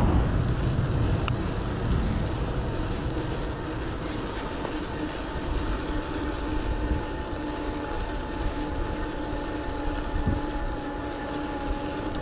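Electric bike's motor whining at a steady pitch while riding along a tarmac road, over a low rumble of tyres and wind on the microphone. A louder rush of passing traffic fades away in the first couple of seconds.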